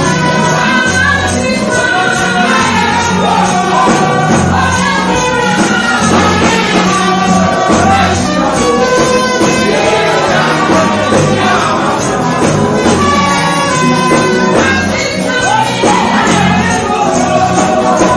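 Live gospel music: a woman singing lead into a microphone over an amplified band with a steady bass beat.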